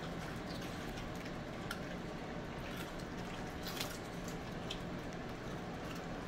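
Dogs nosing and chewing cauliflower scraps off a tile floor: soft wet mouth sounds and a few scattered light clicks, the sharpest a little before four seconds in, over a steady low hum.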